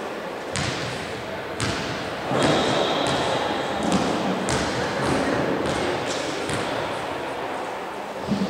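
Volleyballs being struck and bouncing on the floor of a large sports hall: about ten sharp thuds at uneven intervals, each ringing on in the hall's echo, over a background of voices.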